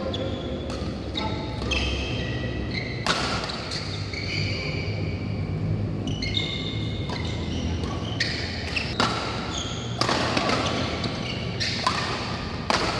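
Badminton doubles rally in an echoing hall: several sharp racket hits on the shuttlecock, and many short, high squeaks from players' shoes on the court mat.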